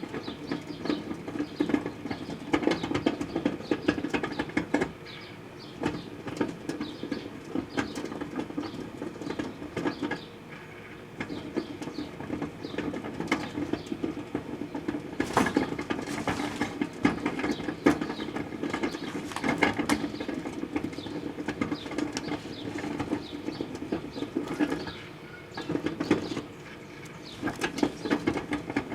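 Microwave oven running with a steady hum, under a dense, irregular crackling and ticking from the sugarcane heating inside it.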